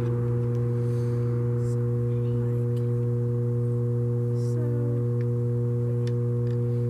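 A steady low hum with a few evenly spaced overtones, unchanging in pitch and level, with a few faint clicks from handling the tripod's phone mount.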